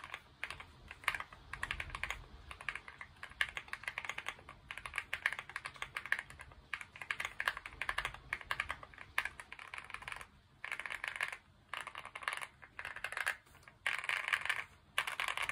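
Typing on a modded Akko ACR Alice Pro mechanical keyboard with Akko CS Crystal switches: a fast, continuous stream of keystrokes that breaks into short bursts with brief pauses about two-thirds of the way through.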